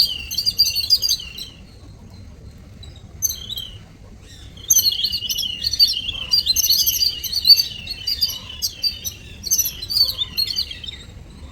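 Several weaver birds chattering with quick, overlapping chirps. A burst at the start is followed by a lull with one short call, then dense chirping resumes about four and a half seconds in and fades near the end.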